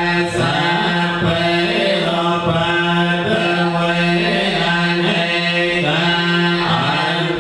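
Buddhist chanting: a group of voices reciting in unison on one steady pitch, the syllables moving in an even rhythm.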